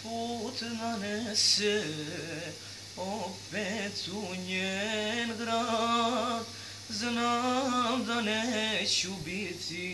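A voice singing a slow melody, with two long held, wavering notes in the middle.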